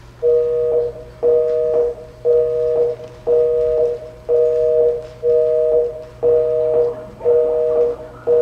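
North American telephone busy signal: a two-tone beep repeating evenly about once a second.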